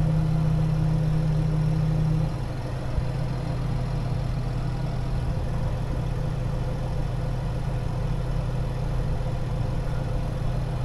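Deutz-Fahr 6175 TTV tractor engine running steadily, heard from inside the cab. About two seconds in, a steady hum drops away and the sound settles a little quieter.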